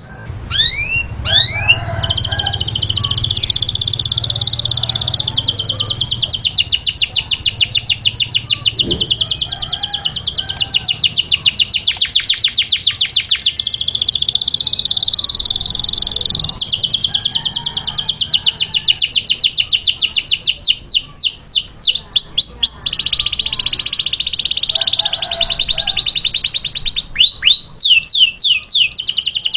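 Domestic canary singing a long taghreed song, used as a tutor song for young canaries. It is made of long trills of fast repeated high notes, broken by a few quick sweeping whistles about a second in, near the three-quarter mark and again near the end.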